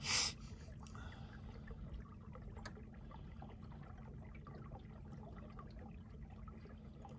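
Water lapping and trickling against a boat hull as it circles slowly under a Garmin Force electric trolling motor on a low setting, with a faint steady hum. A brief rush of noise comes right at the start.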